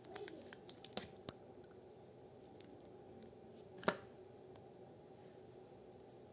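Small metallic clicks and taps from a fine pin and the crown stem being worked on an ETA G10.711 quartz watch movement. A quick run of clicks comes in the first second or so, then a single click, then a louder click about four seconds in.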